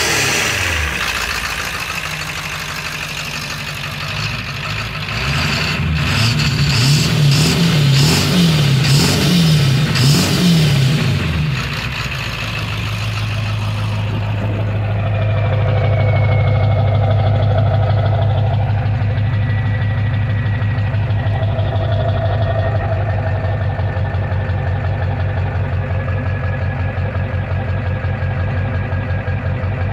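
7.3 Power Stroke V8 turbodiesel with a Holset HX50 turbo running: revs fall away, then it is blipped in a quick run of about half a dozen revs before settling to a steady idle. A faint whistle slowly drops in pitch as it idles.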